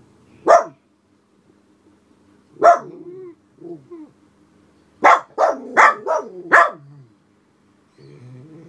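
Miniature poodle barking sharply at the window: a single bark, another a couple of seconds later, then a quick volley of about five barks. Alert or guard barking at a person walking a dog past the house.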